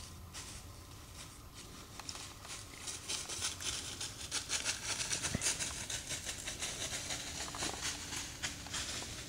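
Whitetail deer walking through dry fallen leaves: a run of crisp leaf crunches and rustles that grows louder and denser about three seconds in.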